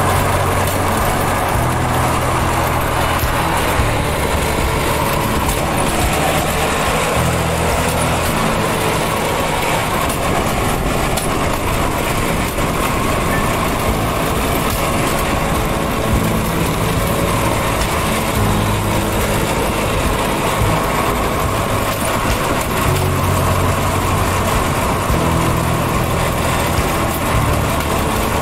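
Motorized rail trolley travelling along a railway track: steady, loud running noise of the engine and the wheels on the rails, unbroken throughout.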